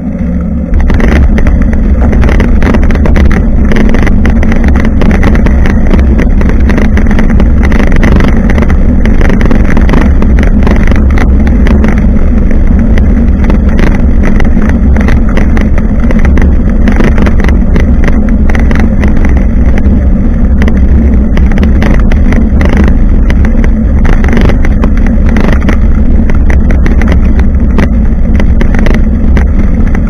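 Wind buffeting and road vibration on a bicycle-mounted camera while riding: a loud, constant low rumble with many small rattles and knocks. It gets louder about a second in.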